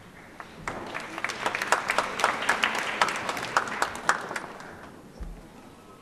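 Audience applause: a crowd clapping that swells about half a second in and dies away by about four and a half seconds.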